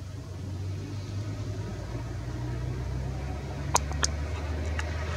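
Engine of a Volga hydrofoil speedboat running at speed on its foils: a low, steady drone. A few sharp clicks near the end.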